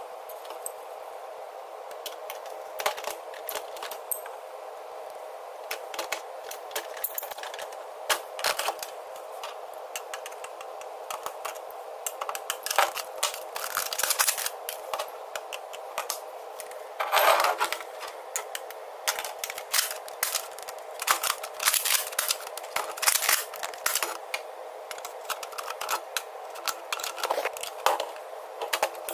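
Irregular clicks, taps and knocks of hard plastic Nerf blaster parts and a small screwdriver being handled and fitted together, with a denser flurry of clatter about midway, over a steady hum.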